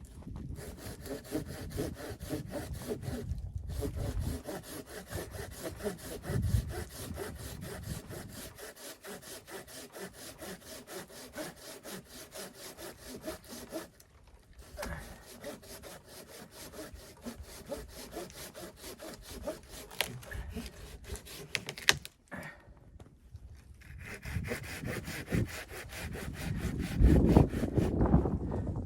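Hand saw cutting through wood in quick, even strokes, stopping briefly three times. Louder low thuds come near the end.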